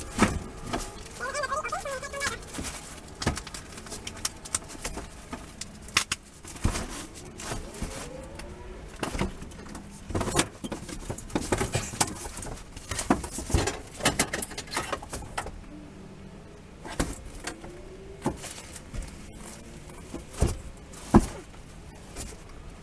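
Scattered knocks, taps and clicks come at irregular intervals, with one sharper knock near the end. Faint pitched calls sound now and then in the background.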